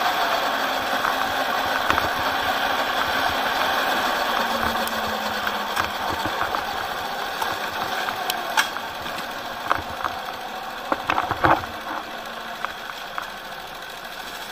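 Rental go-kart engine heard onboard, easing off and slowing to a low idle as the kart rolls in off the track, growing steadily quieter. A few sharp rattles and knocks in the second half.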